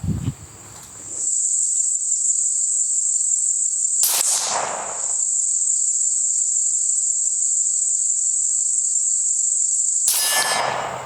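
A steady high-pitched insect trill, typical of crickets, with one sharp crack about four seconds in and another sudden noise near the end.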